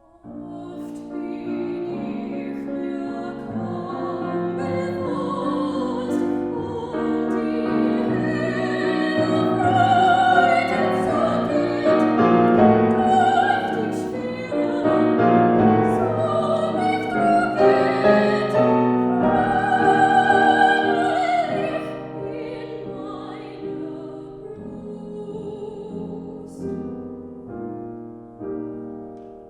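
Classical soprano singing a German art song with vibrato over piano accompaniment, swelling louder toward the middle. The voice stops about two-thirds of the way through, and the piano carries on alone.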